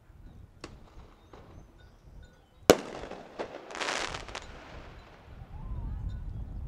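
A sharp, loud bang about two and a half seconds in, with a trailing echo. About a second later comes a burst of crackling that fades away, and a couple of faint clicks come before the bang. A low rumble sets in near the end.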